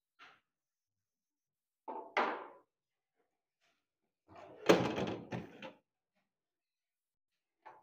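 Handling knocks: a short double knock and scrape about two seconds in, then a loud thump with a brief clatter about five seconds in, and a small knock near the end, as things are moved and set down below a desk.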